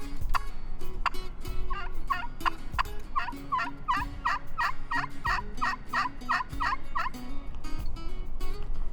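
A long series of turkey yelps, about three to four a second, lasting some five seconds from about two seconds in, over low wind rumble and scattered sharp clicks.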